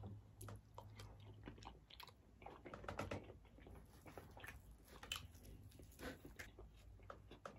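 Faint close-up chewing of tender turkey leg meat, with soft, irregular wet mouth clicks.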